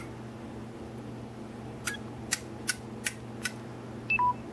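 Relays on a Wi-Fi relay controller board clicking over one after another: five sharp clicks about 0.4 s apart, over a faint steady hum. Near the end, a Samsung Android phone gives two short two-note beeps, high then low: its low-battery alert.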